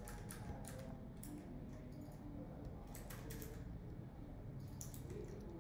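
Scattered computer keyboard keystrokes and mouse clicks, a few sharp clicks spaced irregularly over a low steady room background.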